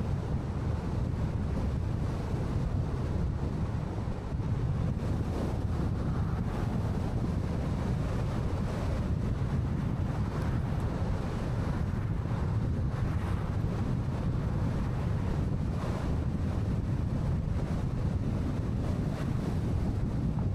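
Steady road and wind noise of a car driving, mostly a low rumble with a faint hiss above it.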